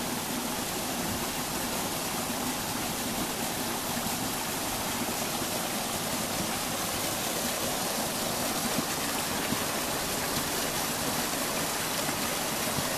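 Small woodland brook flowing, a steady even rush of water.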